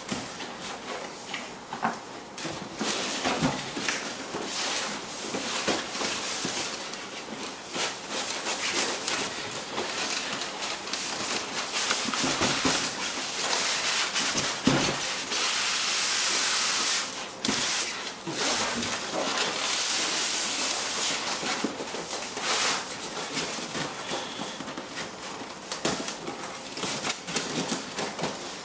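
A large cardboard gun box and its plastic and foam packing being opened and handled: continuous rustling and crinkling with scattered knocks and scrapes.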